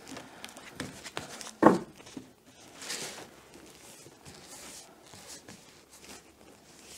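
A deck of oracle cards being spread out in a fan across a cloth-covered table: soft sliding rustles and light clicks of card against card, with one sharper knock about a second and a half in.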